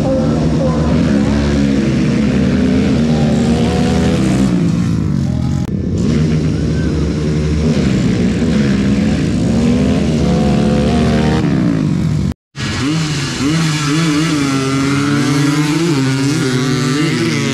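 Off-road engines of ATVs and dirt bikes revving hard, their pitch rising and falling repeatedly as the machines accelerate and back off. A brief silence about twelve seconds in is followed by more revving.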